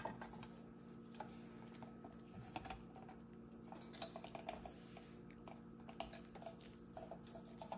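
Faint, scattered small metallic clicks and clinks of a screwdriver working small screws out of a clock frame's base, over a steady low hum.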